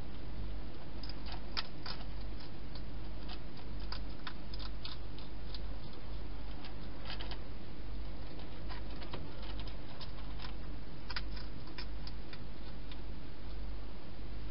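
Hedgehog eating at bowls inside a plastic feeding box: irregular small crunching clicks in clusters, over a steady low hum.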